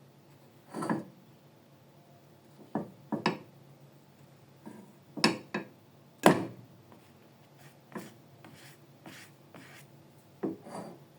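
Irregular knocks and clatters of kitchen handling: cookware and utensils being picked up and set down, about a dozen sharp strikes, the loudest about six seconds in.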